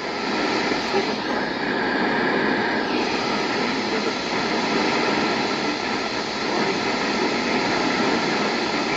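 Steady hiss of radio static from a weather-radio receiver.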